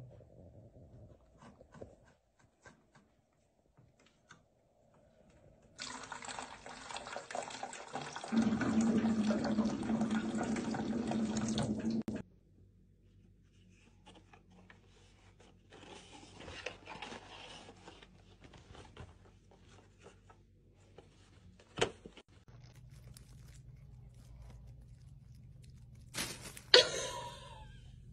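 Refrigerator door dispenser running water for about six seconds, the even rush of the stream joined partway by a lower hum. Scattered faint knocks and a sharp click follow.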